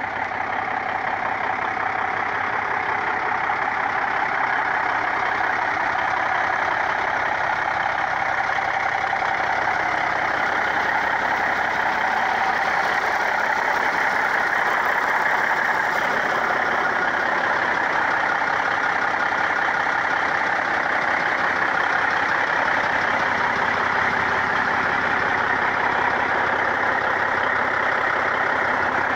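International 9300 semi truck's diesel engine idling steadily, with no revving.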